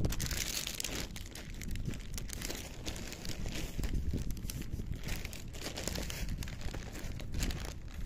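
Cats eating close up, chewing dry kibble and wet canned cat food from one dish: a dense run of small, irregular crunches and clicks.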